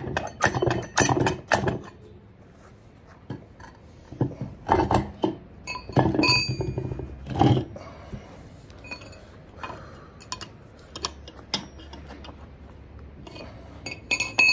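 Metal clanks and knocks in a few bunches, some with a short bright ring, as tools are worked against the output flange of a BMW E36 M3 differential. The flange is stuck and will not come out of the case.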